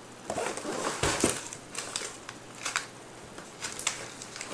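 Cardboard box and plastic medicine sachets being handled: irregular rustling and crinkling with scattered clicks, and a dull thump about a second in.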